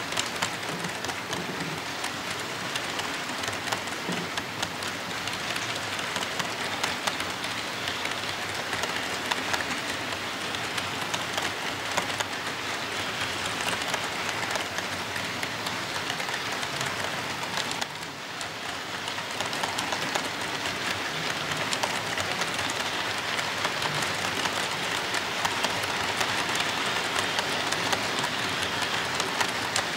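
HO-scale model freight cars rolling past on the track: a steady, dense clatter of small metal wheels on the rails, dipping briefly about eighteen seconds in and a little louder after.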